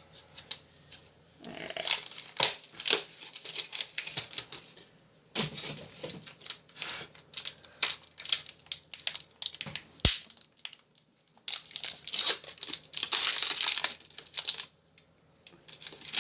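Foil wrapper of a Pokémon booster pack crinkling and tearing as it is opened, with the rustle and clicks of trading cards being handled.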